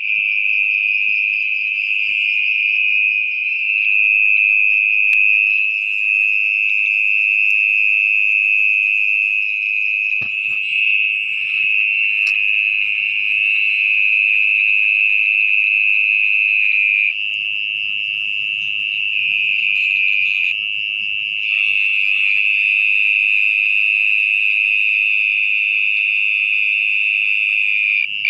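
Mole cricket singing from its burrow: a loud, continuous trill at one steady pitch, dipping slightly in loudness and pitch for a few seconds about two-thirds of the way through.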